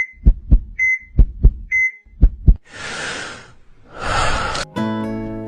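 Heartbeat sound effect: three double thumps, each pair just after a short high beep like a heart monitor, about one a second. Then two whooshing rushes of noise, and a sustained acoustic guitar chord comes in near the end.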